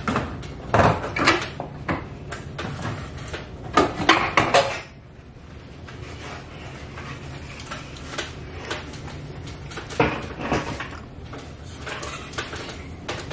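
Plastic diffuser lens of a ceiling fluorescent light fixture being unclipped, lowered and handled. It knocks and rattles in bursts about a second in, around four seconds in, and again around ten seconds in.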